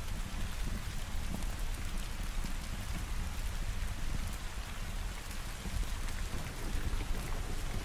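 Steady heavy rain falling, with a continuous low rumble underneath.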